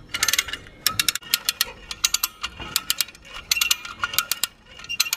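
Lever-operated ratchet winch being pumped by hand, its pawl clicking in quick runs, stroke after stroke, as it hauls a heavy wooden mast along the deck. The clicking stops abruptly at the end.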